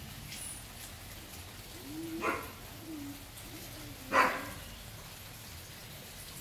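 Neighbours' dogs barking: two single barks about two and four seconds in, the second louder.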